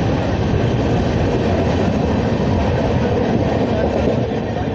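Steady running noise of an Indian Railways express train moving at speed: wheels on the rails and the coach rattling, heard from beside the coach at an open window or door.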